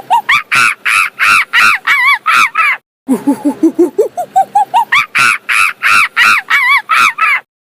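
An animal calling in a series. Short low notes rise step by step in pitch, then give way to loud, high, arched calls at about three a second. The same sequence breaks off and starts over after a brief gap, about three seconds in.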